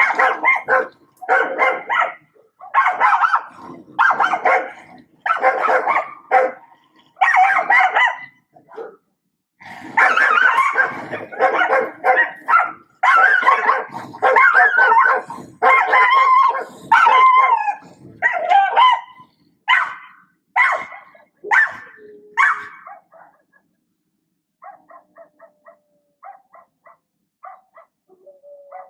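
Dog barking in a long run of loud barks, about one a second. After about 23 seconds it gives way to much fainter short sounds.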